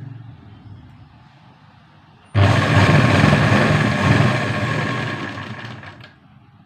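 Sewing machine running as it stitches a fall onto a saree hem. It starts suddenly about two seconds in, runs steadily with a high whine for about three seconds, then slows and stops near the end.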